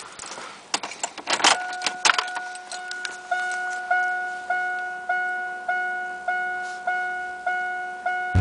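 Keys jangling and clicking, then a Chevrolet S-10 Blazer's dashboard warning chime dinging steadily, a little under two dings a second.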